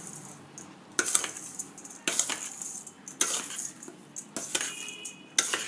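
A metal spoon scrapes and knocks against a stainless steel bowl while stirring sugar into cooked rice, with a sharp clink about once a second.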